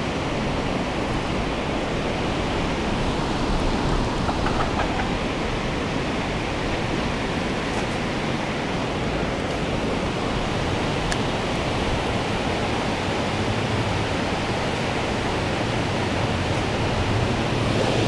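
Steady rushing of flowing river water, an even, unbroken hiss.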